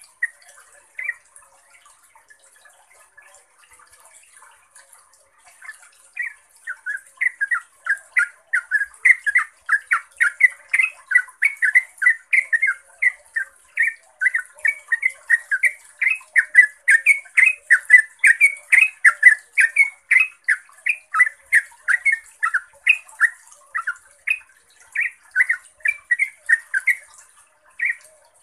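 Yellow-vented bulbul singing. After a brief call and a short pause, about six seconds in it breaks into a long unbroken run of quick, clear notes, roughly three a second, that stops just before the end.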